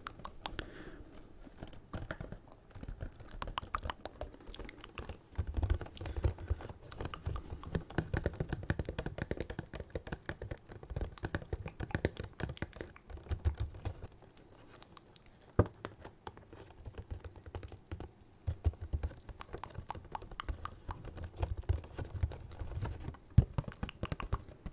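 Fingertips tapping rapidly on a cardboard Funko Pop box held close to the microphone: a dense run of light taps, with deeper, duller knocks through long stretches and one sharper click about halfway through.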